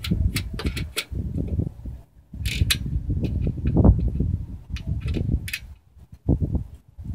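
Small metal clicks and clinks as a steel bracket is set over the seat-mount bolts and fasteners are fitted to it, over an uneven low rumble.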